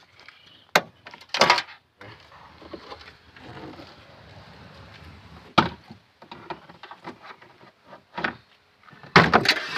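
Plastic interior trim panel of a Suzuki Celerio's trunk being pried loose with a plastic trim removal tool: a handful of sharp clicks and knocks as its clips pop and the panel moves, with a louder cluster near the end.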